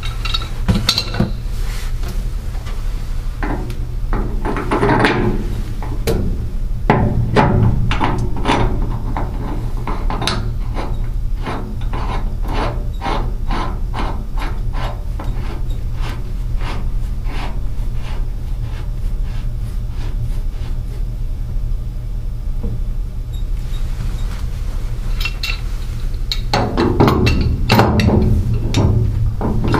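Metal pipe fittings and a pipe wrench clinking and knocking as threaded steel pipe unions are worked on and tightened, in short irregular runs of clicks, over a steady low hum.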